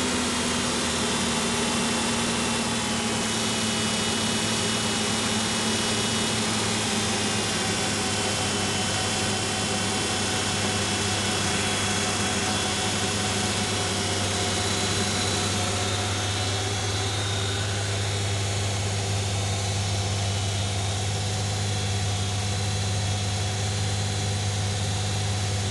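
Suzuki Multicab's carbureted F6A 12-valve three-cylinder engine idling steadily, its pitch easing down a little over the first few seconds before settling.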